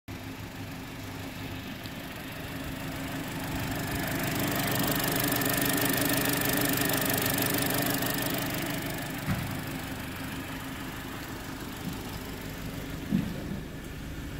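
2014 SsangYong Korando's 2.0-litre four-cylinder petrol engine idling steadily, an engine that tested good. It grows louder for a few seconds in the middle, and two short knocks sound in the second half.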